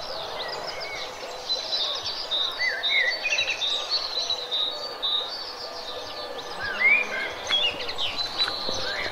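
A chorus of many small birds chirping and calling over one another, with quick rising and falling chirps.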